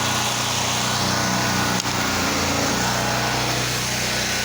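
Small gas engine of a pressure washer running steadily, with the hiss of water spraying from the wand as cleaning solution is downstreamed onto the siding.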